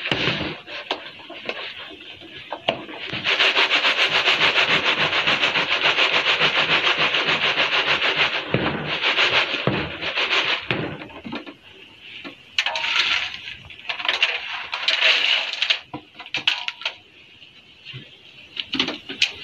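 Mealworm substrate with larvae and pupae shaken back and forth in a wire-mesh sieve: a dense, rapid rustling hiss of grains rubbing over the mesh, sifting out the pupae and large worms. It comes in bursts, the longest from about three to eight seconds in, then shorter bursts with quieter stretches near the end.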